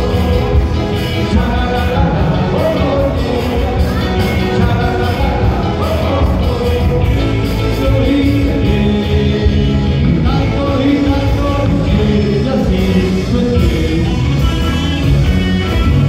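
Live band playing a song: a male lead singer's voice through the PA over electric guitar and drums, with a steady beat.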